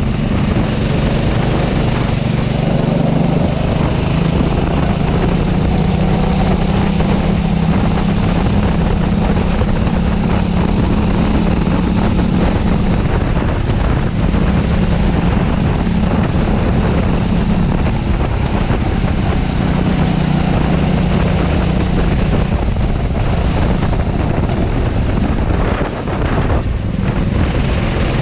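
Racing kart's engine running hard at high revs, heard from the driver's seat, with wind noise on the microphone. The engine note drops briefly near the end, then picks up again.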